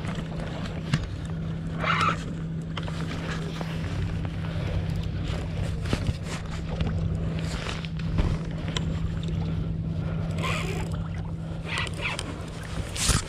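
A steady low motor hum under rumbling noise, with scattered clicks and brief rustles from handling a fishing rod and spinning reel.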